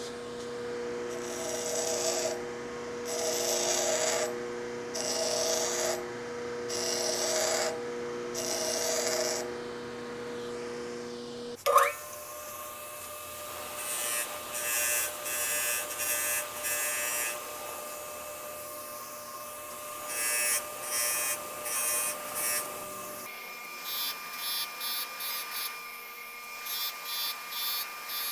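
Electric pedestal grinders running with a steady motor hum while the cut ends of short bolts are ground. There are five separate grinding passes against the first wheel. Then, on a second grinder, come many short touches of the bolt ends against the wheel to deburr them.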